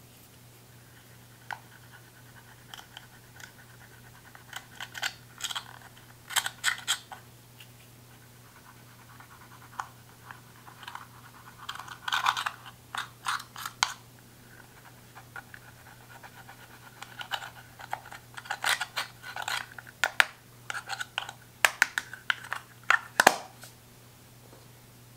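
Thin metal pick scraping and prying baked eyeshadow out of a plastic compact: clusters of sharp clicks and scratches with short pauses between.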